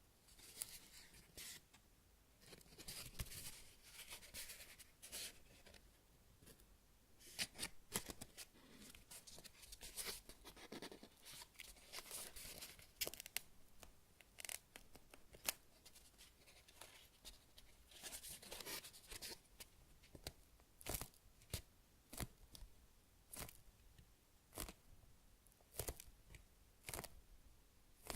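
Hands squeezing and handling high-rebound foam squishy toys shaped like roasted sweet potatoes: soft rustling stretches and many short, sharp clicks and crackles from the foam and its slightly sticky surface.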